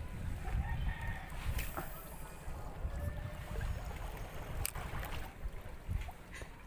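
Wind rumbling on the microphone over seawater lapping against rocks, with a few faint clicks.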